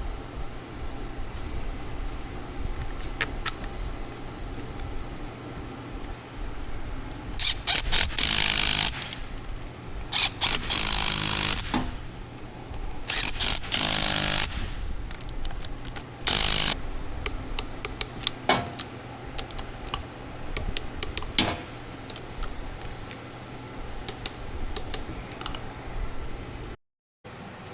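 A power tool runs in several bursts of one to two seconds while bolts are driven on a rear differential coupling, with scattered metallic clicks and knocks of hand tools in between.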